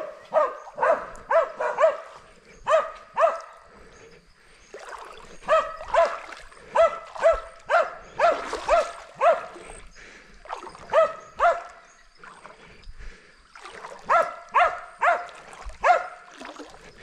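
Hunting dog barking repeatedly in bursts of short barks, about two a second, with brief pauses between bursts.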